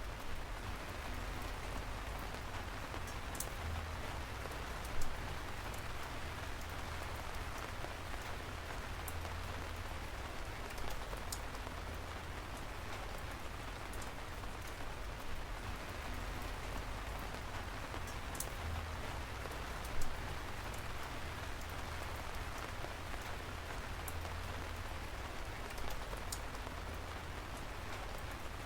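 Steady rainfall: an even hiss of drops with a low rumble underneath, and now and then a louder single drop striking sharply, most plainly twice.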